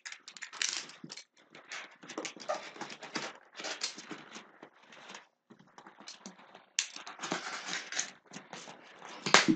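Cardboard box flaps being pulled open and rubbed against each other, in irregular scraping and rustling bursts, with a sharp knock near the end.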